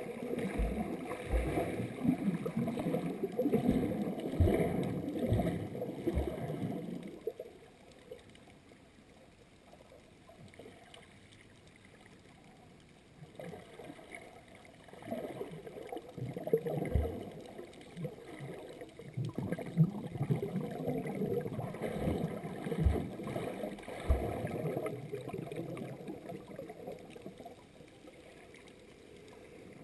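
Muffled underwater sloshing and bubbling from swimmers' strokes and kicks close to the camera, heard through a GoPro's waterproof housing, with occasional dull knocks. It goes on for about seven seconds, falls quiet for about six, then picks up again until a few seconds before the end.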